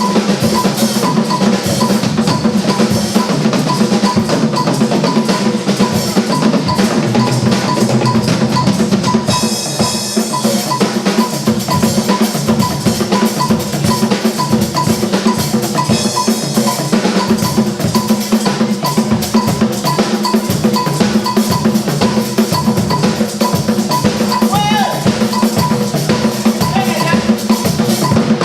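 Drum-led percussion music playing a steady, dense rhythm without a break.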